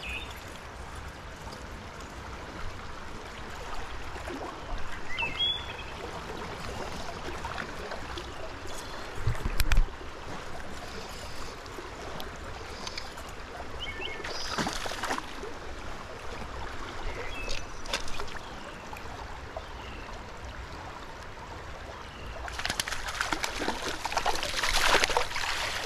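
Stream water running steadily, with a low thump about ten seconds in. A hooked brown trout splashes briefly at the surface midway, then thrashes and splashes for about three seconds near the end.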